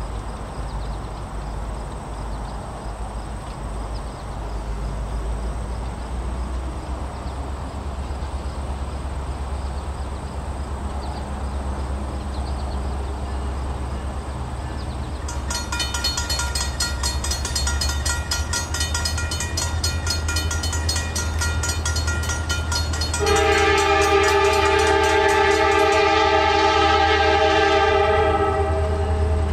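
Diesel locomotive rumbling steadily. About halfway in, its bell starts ringing. Near the end, its multi-chime air horn sounds one long, loud blast.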